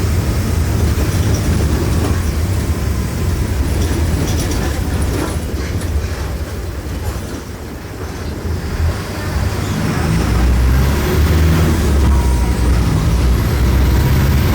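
Mercedes-Benz OF-1418 bus's OM-904LA four-cylinder turbodiesel running under way, a steady low drone. Its note drops off about seven seconds in, then comes back stronger from about ten seconds in.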